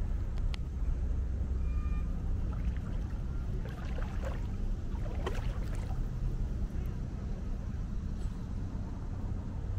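A steady low rumble with a few faint sloshes of feet wading through shin-deep floodwater, about four and five seconds in.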